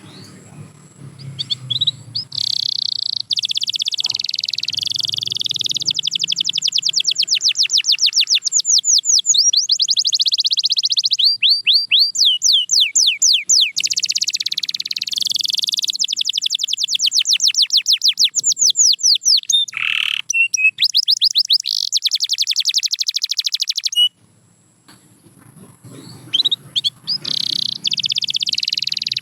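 Canary singing long trilled song phrases: fast runs of rapidly repeated high notes, one phrase after another, with a brief pause near the end before the song starts again.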